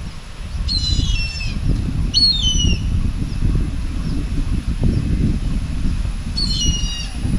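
A bird calls three times in short groups of falling notes, about a second in, near two and a half seconds, and near the end. Under the calls runs a steady low rumble, which is the loudest sound throughout.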